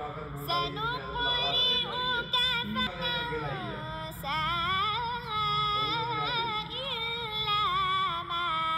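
A boy reciting the Quran in melodic competition style, his high voice holding long ornamented notes that wind up and down in pitch. He breaks briefly for breath about four seconds in.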